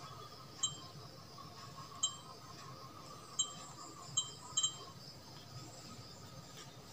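Sony HDR-CX405 handycam's operation beeps: six short electronic beeps as its touch-screen menu is tapped, the last two in quick succession.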